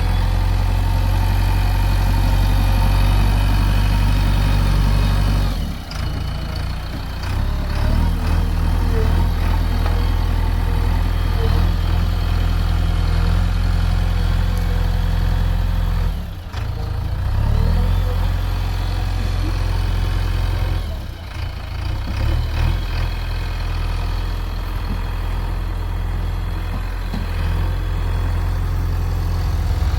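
Heavy diesel engine running steadily at a low, even note, with brief dips in level about three times.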